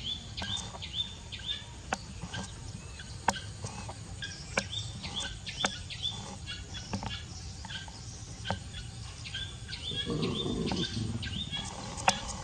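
Small birds chirping over and over, short falling notes. There are occasional sharp clicks, and a brief, lower, noisier sound about ten seconds in.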